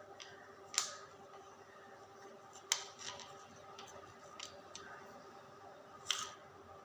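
Hands working on a washing machine's lint filter bag and its plastic frame: three sharp clicks with several fainter ones between, over a faint steady hum.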